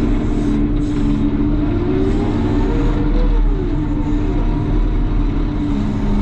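CAT loader's diesel engine running steadily, its pitch rising and falling several times as it revs.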